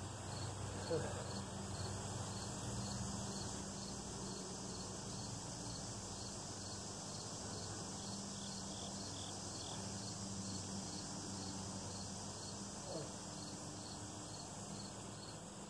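Insects chirping in a steady pulsing rhythm, two to three pulses a second, over a low steady hum.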